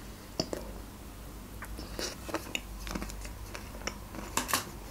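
Close-up chewing and biting of a chocolate- and nut-coated Magnum ice cream bar: soft mouth sounds with scattered short crunches and clicks, the loudest pair near the end.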